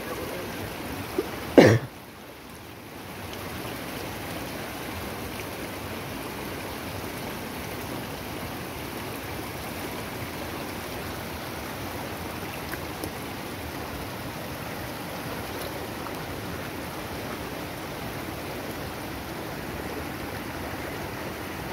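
Fast-flowing floodwater in a stream rushing steadily. One loud, sharp sound cuts in once about a second and a half in.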